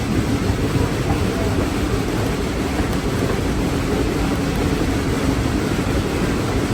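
Steady low rumble of a train ride heard from on board an open excursion car (a converted logging flat car): wheels running on the rails and the car rattling as the train climbs.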